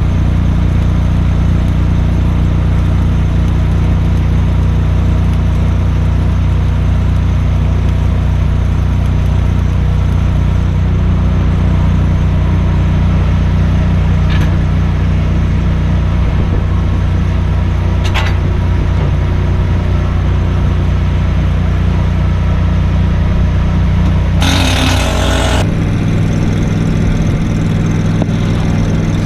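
Engine of an engine-driven welding machine running steadily at a constant speed. About 25 seconds in there is a short hissing burst, and then the engine note changes as it shifts speed.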